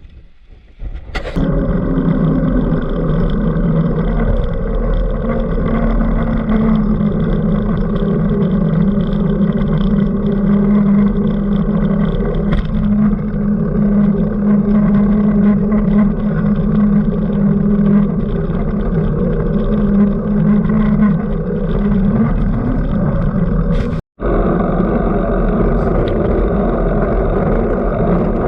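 A vehicle engine running loudly at fairly steady revs, starting about a second in. It cuts out for an instant near the end and then carries on.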